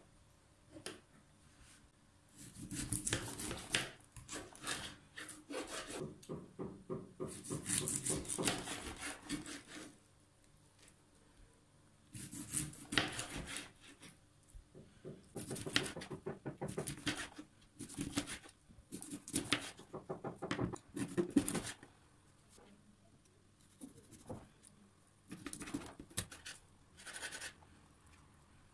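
Kitchen knife sawing through a whole Atlantic bonito on a plastic cutting board, cutting it crosswise into steaks through flesh and backbone. The sound comes as several bursts of quick scraping strokes, each lasting a second or more, with short pauses between them.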